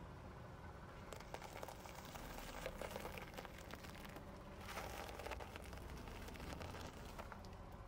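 Car tyre rolling over paper plates of pretzel sticks, crushing them with faint crunching and crackling in two bouts, one plate after the other.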